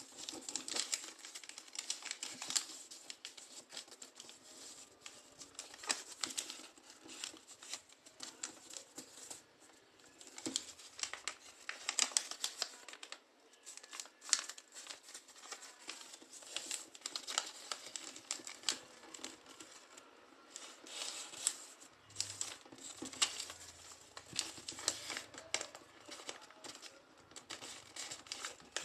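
A sheet of paper being folded and creased by hand into a paper airplane: irregular crisp rustling and crinkling, with short sharp clicks as the creases are pressed down.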